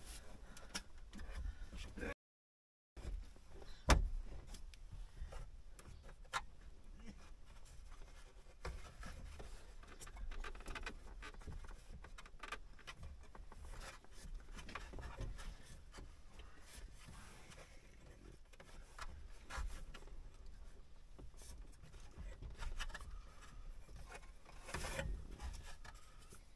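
Wiring being handled and fed behind a vehicle dashboard: cables and plastic trim rubbing, with scattered small clicks and one sharper knock about four seconds in.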